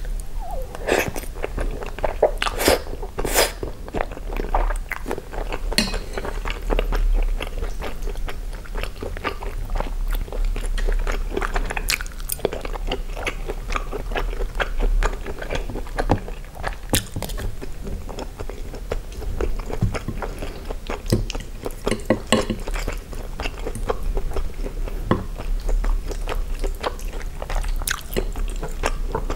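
Close-miked chewing of spaghetti with sausage slices in tomato sauce: a steady run of small wet clicks and smacks of the mouth working the food.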